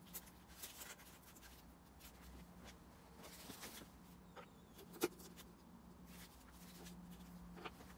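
Near silence with a faint low hum. Soft metal clicks as a piston ring is set into a 4G63 cylinder bore and pushed down with a forged piston, the sharpest about five seconds in and another near the end.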